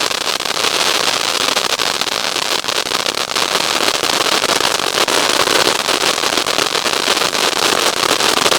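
Two firework ground fountains burning together with a loud, continuous crackle: a dense hiss of rapid tiny pops.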